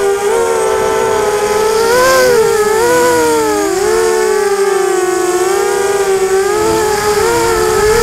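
Four Emax MT1806 brushless motors spinning Gemfan 5030 propellers on a ZMR250 quadcopter, whining loudly close to its onboard camera's microphone. Several pitches keep rising and falling and weaving around one another as the throttle changes and each motor speeds up or slows down to steer.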